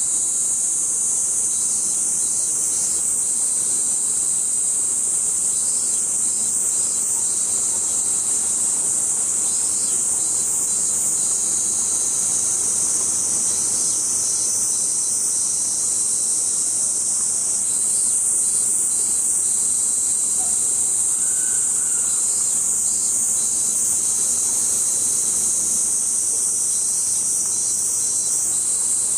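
Loud, steady, high-pitched drone of a summer cicada chorus, with a fainter rhythmic pulsing of other insect calls beneath it.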